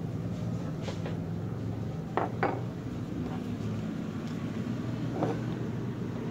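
A steady low background hum, with a few faint, brief sounds about two seconds in and again near the end.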